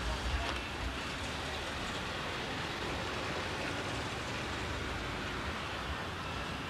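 Steady hiss-like outdoor background noise, with some low rumble in the first second and no clear engine or voice standing out.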